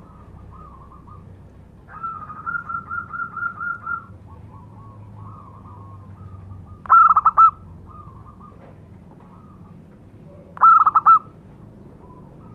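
Local zebra dove (perkutut) cooing: a rapid run of about nine pulsed notes about two seconds in, then two short, loud phrases of a few notes each, about three and a half seconds apart, with fainter cooing notes between.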